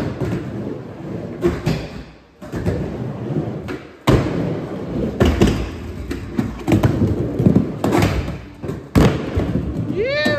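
Skateboard wheels rolling on a wooden mini ramp, with repeated thuds and clacks as the board and tail hit and slide along the metal coping during back tailslide attempts. A short whooping call near the end.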